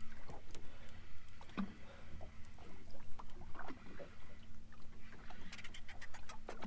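Scattered knocks and clicks on a small fishing boat, over a faint steady low hum, while a hooked fish is brought up on a jigging rod; a quick flurry of sharp clicks comes near the end.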